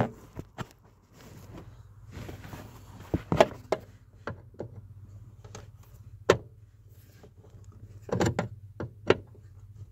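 Scattered sharp clicks and knocks of a screwdriver being twisted and pressed into a plastic trim panel by hand, along with handling bumps, over a faint steady low hum.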